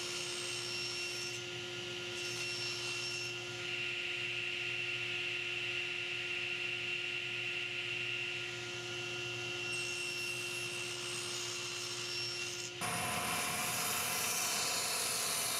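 SawStop table saw running with a steady hum as its blade cuts spline slots across the corners of a mitred walnut frame held in a spline jig. Near the end the sound switches abruptly to a bandsaw cutting thin strips for splines.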